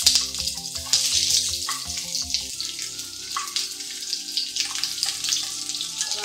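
Chunks of onion dropped into hot coconut oil in a frying pan, the oil sizzling. The sizzle flares up again as more pieces land in the first second or two.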